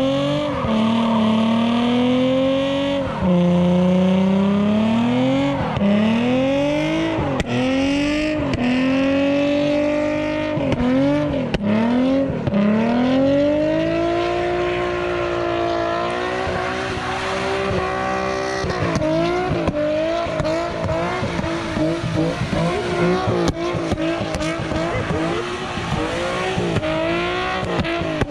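Infiniti G35's V6 revving hard while the car drifts on wet pavement, the engine note climbing and dropping again and again every couple of seconds as the throttle is worked, with tyre noise under it. About two-thirds of the way through, the revving turns choppier, into quick short blips.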